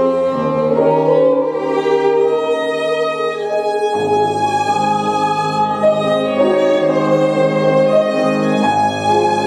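Violin playing a slow melody of long held notes over piano accompaniment.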